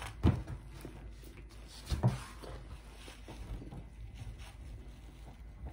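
Close-miked chewing of pizza with faint mouth and rustling noises, broken by two dull thumps, one near the start and one about two seconds in.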